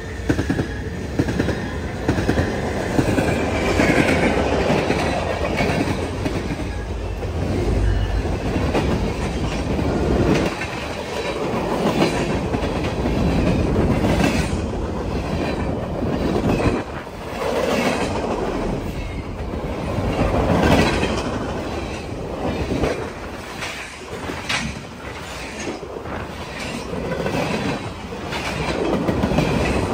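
Freight train cars rolling past, a steady rumble with the wheels clacking sharply over the rails every second or two.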